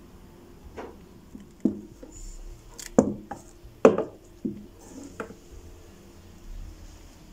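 A series of irregular knocks or taps, about six or seven, with the two loudest about three and four seconds in.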